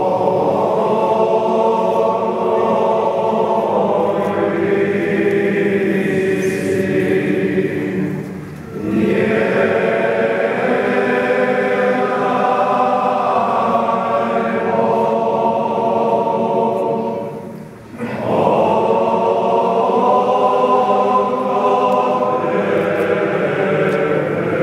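A group of voices singing a traditional church chant, in three long sustained phrases with short breaths between them.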